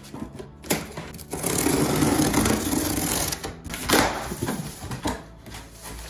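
Cardboard shipping box being opened by hand: the plastic strapping cut, then scraping and rustling as the flaps are pulled apart, with a few sharp snaps, the loudest about four seconds in.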